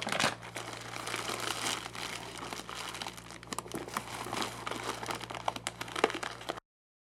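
Packaging crinkling and rustling as an accessory is handled and unwrapped, with a few sharper crackles; it cuts off abruptly to dead silence near the end.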